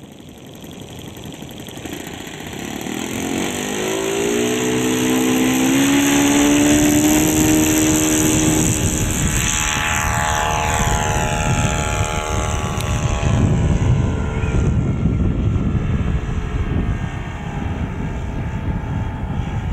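Black Horse Percival Provost radio-controlled model aircraft taking off: its motor and propeller rise in pitch as it runs up across the grass, drop in pitch as it passes close by about ten seconds in, then carry on as a steadier, more distant drone as it climbs away.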